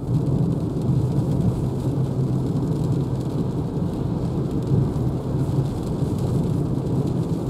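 Steady low road-and-rain noise inside a moving Renault Zoe: tyres rumbling on wet tarmac and rain on the car body, without a break.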